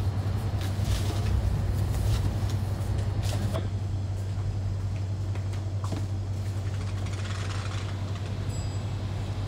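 Steady low machine hum in a room, with short scraping and crackling noises over the first few seconds as a cardboard parcel box is sealed with tape.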